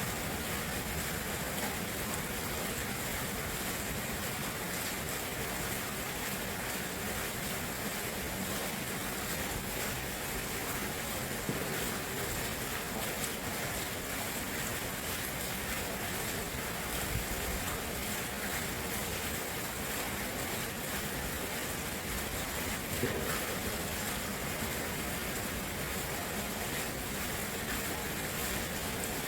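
Steady rush of flowing water, an even hiss with no pauses, with a few brief slightly louder splashes.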